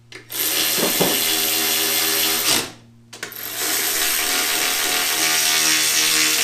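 Cordless electric ratchet running down bolts in a transmission case: two steady motor runs of a few seconds each, with a short pause between them.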